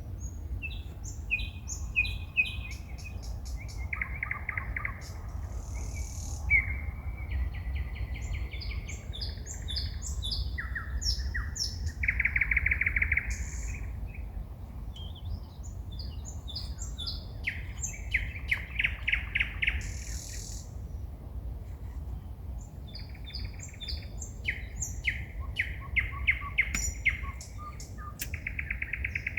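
A songbird singing at night in a long, varied song: phrases of fast repeated notes, rattles and high whistles, one after another every second or two, over a steady low background rumble.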